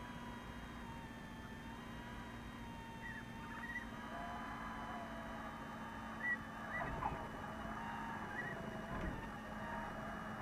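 Cockpit sound of a Cessna 172's engine at low power, a steady hum with faint level tones. A few short high chirps come from about three seconds in, and there is a brief knock about six seconds in.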